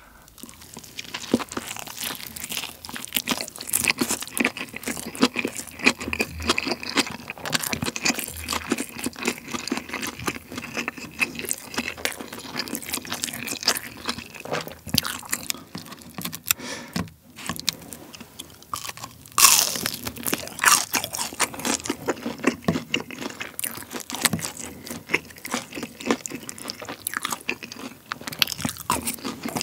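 Close-miked eating: biting into a whole cheese gimbap (seaweed-wrapped rice roll) dipped in tteokbokki sauce and chewing it, many small wet clicks of the mouth and food in a steady run. A louder burst comes about two-thirds of the way through.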